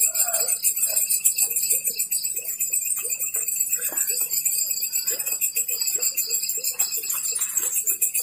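Night-time insect chorus: several insects trilling steadily at different high pitches in a fast shimmering pulse, with short, faint lower notes scattered through.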